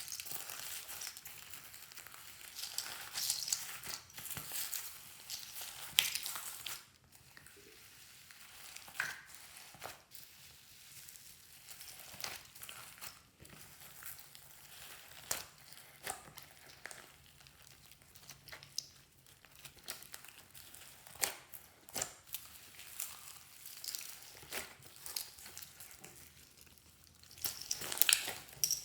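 Hands squishing and mixing slime, with sticky crackles, clicks and pops and some crinkling. It is busy for the first several seconds, sparser in the middle, and busier again near the end.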